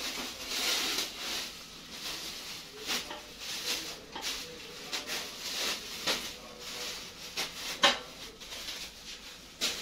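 Plastic grocery bags and packets rustling and crinkling in irregular bursts as they are handled, with one sharp knock about eight seconds in.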